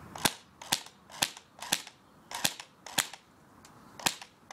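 BB gun firing seven sharp shots, the first four about half a second apart, the rest more spaced out.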